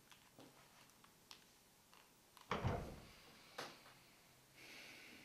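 Mobile phone being handled while dialling: a few soft keypad clicks, then a louder thump with a rustle of handling about two and a half seconds in and a sharp click as the phone is raised to the ear.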